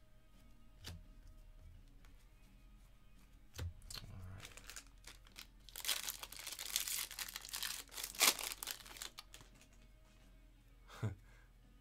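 Foil wrapper of a Topps Series 1 baseball jumbo pack being torn open and crinkled; the tearing is loudest from about six to nine seconds in. Before it come a few light clicks and a soft knock from handling the cards, and there is one more tap near the end.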